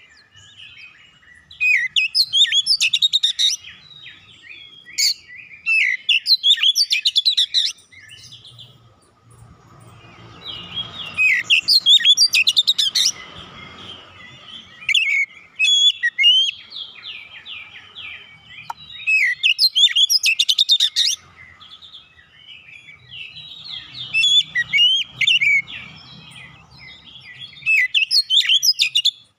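Male Oriental magpie-robin singing in full song: bursts of rapid, varied whistles and chirps every few seconds, with short pauses between phrases.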